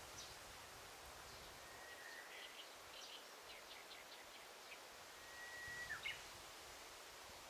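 A bird singing faintly over a soft forest hiss: a long, steady whistled note, a quick run of short high notes, then another long whistle that ends in a sudden dip and upturn.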